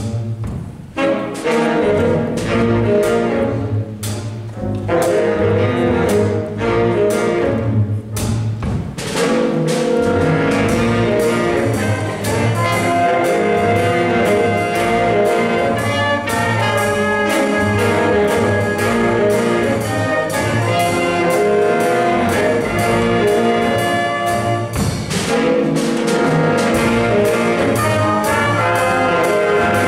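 Jazz big band playing. The rhythm section carries the first several seconds with regular drum strokes, and the full band with its trumpets, trombones and saxophones comes in about nine seconds in.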